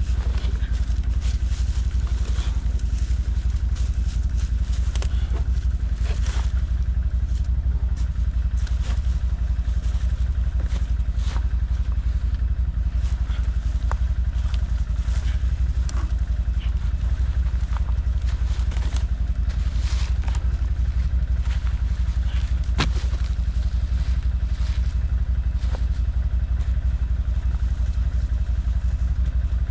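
ODES 650 ATV engine idling steadily, with scattered clatter and cracks of wood and branches being shifted by hand.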